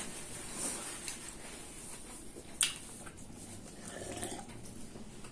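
Faint chewing, swallowing and mouth noises from people eating doughnuts and drinking, with one sharp click about two and a half seconds in.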